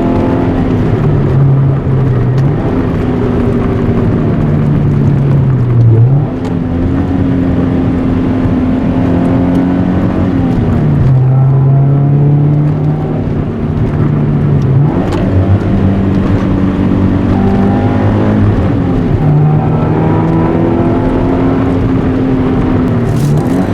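Toyota 86 / Subaru BRZ flat-four boxer engine driving, its note climbing and dropping several times as it is run up and shifted through the gears.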